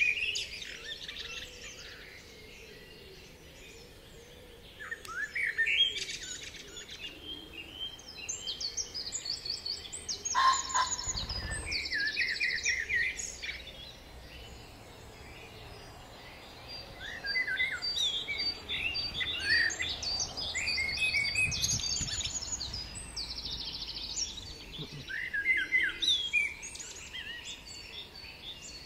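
Small songbirds singing: short chirps and rapid trilled phrases every few seconds, with more than one bird calling.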